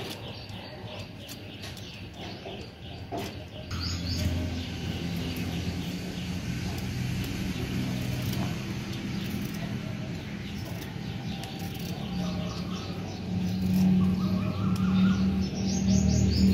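Small birds chirping over and over, with a low steady hum underneath that grows louder near the end.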